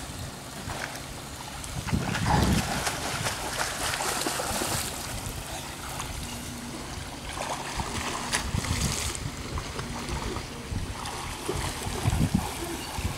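Swimming-pool water splashing and sloshing as children wade and swim, with gusts of wind on the microphone rumbling in a few times.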